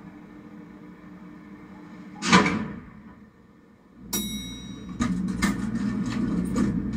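Film soundtrack effects played through a hi-fi amplifier and loudspeakers: a short swish about two seconds in, a moment of near quiet, then from about four seconds a low rumble with scattered clicks and a few thin high tones.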